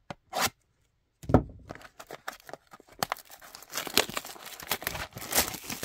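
Cellophane shrink-wrap on a blaster box of trading cards crinkling and tearing as it is peeled off, a dense crackle from about three seconds in. A single sharp knock comes just over a second in.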